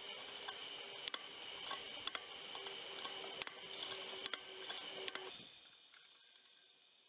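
Ratchet-head torque wrench clicking as it tightens sprocket bolts on a motorcycle wheel hub: a string of sharp, irregular metallic clicks over a faint steady hum, cutting off about five seconds in.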